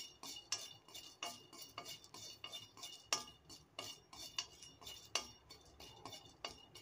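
Spatula stirring cardamom pods dry-roasting in a metal kadai: faint, irregular clicks and scrapes of the spatula and pods on the pan, a few a second.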